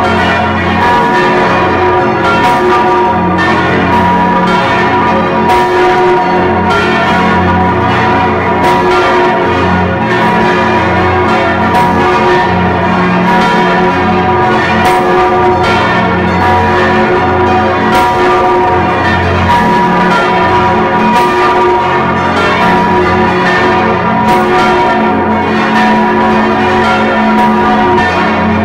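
The Stephanus bell, a large swinging church bell, ringing continuously close up, its clapper strikes repeating steadily over a dense wash of overlapping, sustained bell tones. Ringing in the new year.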